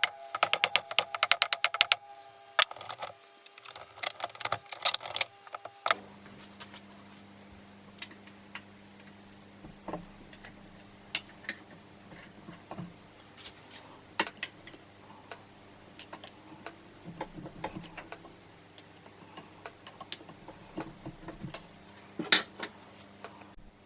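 Tools and engine parts being handled during a Honda CB450 engine teardown. Rapid runs of clicking fill the first six seconds. After that come scattered light clicks and clinks over a low steady hum, with one sharper click near the end.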